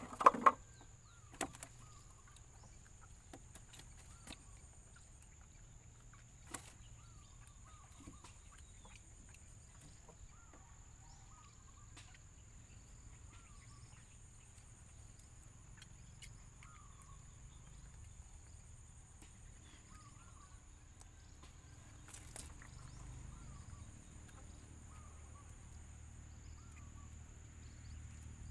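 Quiet riverside ambience while a gillnet is worked from a wooden canoe. There are a few sharp knocks of net and hands against the boat, the loudest just after the start, and faint short animal calls repeat every few seconds over a steady high-pitched tone.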